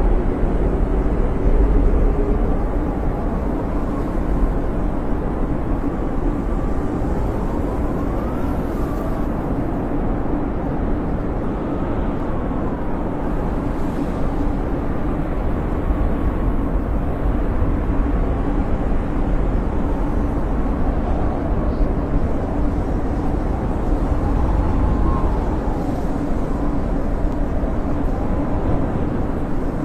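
Snowstorm wind howling steadily, a deep rumble with a faint whistle that slowly rises and falls in pitch.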